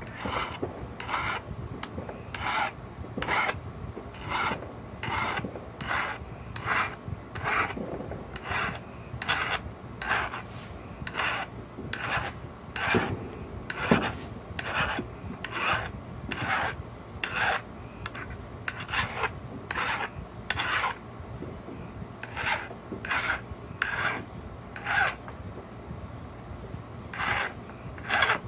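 Flat metal file rasping over the copper tip of an Ishi stick pressure flaker, resurfacing the tip. Steady back-and-forth strokes, about two a second, with a few short pauses.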